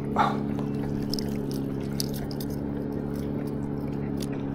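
Water splashing and dripping as a clump of wet lake weed is hauled out of the water by hand. There is one sharper splash just after the start, then scattered drips, over a steady low hum.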